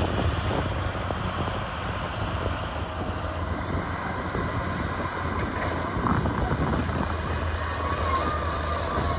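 CAT D6R crawler bulldozer's diesel engine running steadily under load, with continual clanking and rattling from the machine as it works. A wavering high-pitched tone joins near the end.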